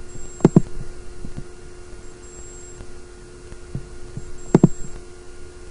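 Two computer mouse clicks, each a quick double tick of press and release, about half a second in and again about four and a half seconds in, over a steady electrical hum.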